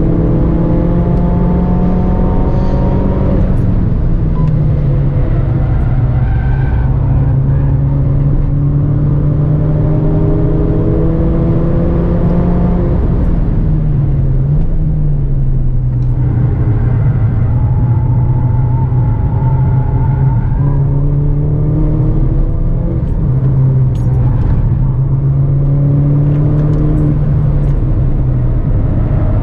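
Mini Cooper's engine heard from inside the cabin under hard acceleration, the revs climbing and falling back at each gear change several times over, with a steady rumble of road and wind noise underneath.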